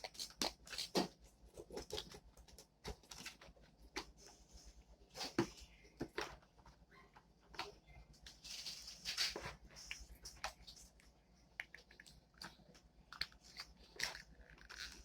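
Slime being handled: faint, irregular sticky clicks and squelches.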